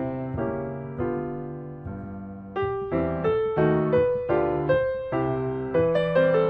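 Background piano music: single notes struck and decaying, picking up to a quicker melody about two and a half seconds in.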